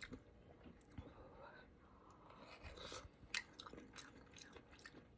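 Faint close-miked chewing and mouth sounds of someone eating spicy noodle stew: soft wet smacks and small clicks, with one sharper click a little over three seconds in.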